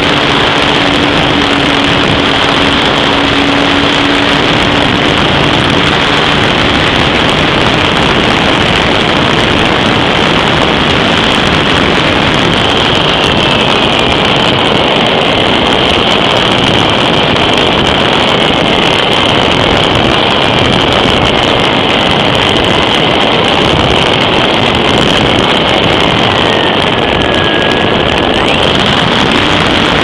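Steady motor and wind noise heard from a camera riding on a small motorized aircraft in flight, with wind rushing over the microphone. About halfway through a thin whine joins in, wavering and drifting slowly down in pitch until shortly before the end.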